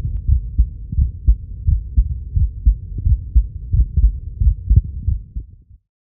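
Human heartbeat recorded through a Skeeper smart stethoscope and played back: deep, muffled lub-dub thuds, about three a second at a rate of about 84 beats a minute. It cuts off abruptly near the end.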